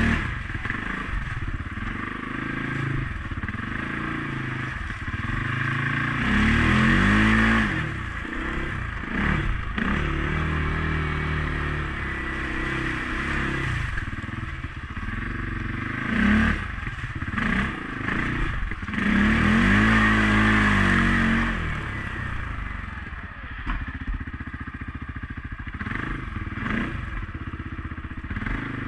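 CFMOTO CForce 500S ATV's single-cylinder engine running under way, revving up and easing off again and again, loudest about seven and twenty seconds in, with occasional knocks and rattles.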